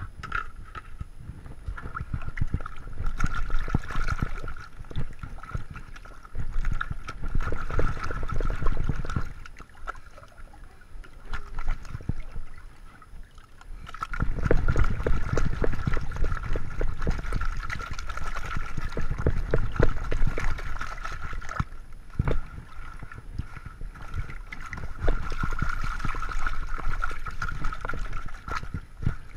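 Water sloshing and gravel rattling as a sieve of dirt and gravel is shaken in a washing trough to wash out the mud, in several long bursts with a quieter pause partway through.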